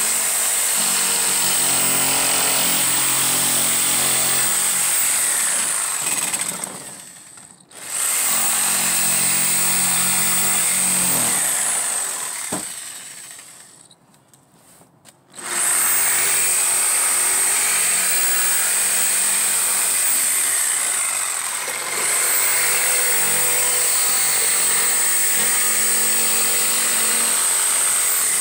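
Ridgid corded jigsaw cutting a curve in plywood, its blade running with a steady high whine. It stops twice, after about six seconds and again after about eleven, and starts again each time, running on to the end.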